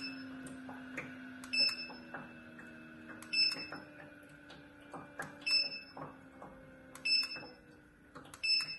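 Short high electronic beeps from a water-vapour fireplace's control unit, five or six of them about every couple of seconds, each acknowledging a remote-control press that steps the flame level down. A steady low hum from the running fireplace sits underneath.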